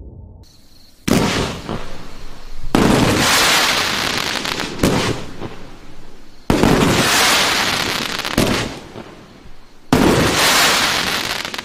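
A 42-shot, 500-gram 1.4G fireworks cake (Raikeo Ti-Gold Coconut with Blue Pearl) firing in volleys. About six surges come a second or two apart, each starting sharply and fading over a second or so.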